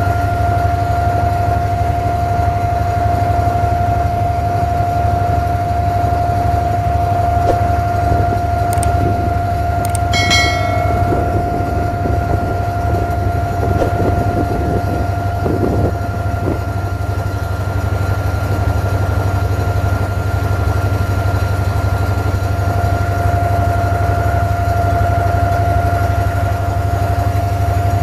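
Abra water taxi's inboard engine running steadily, heard on board as a low drone with a steady whine over it.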